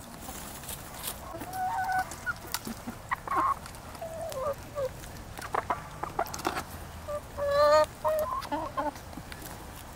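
A flock of backyard chickens clucking in short calls while they peck at a cantaloupe half, with short sharp taps among the calls. One louder call stands out about three quarters of the way through.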